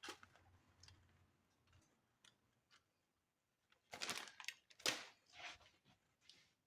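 Faint kitchen handling noises: a few light clicks, then a short run of soft rustling scrapes about four to five and a half seconds in.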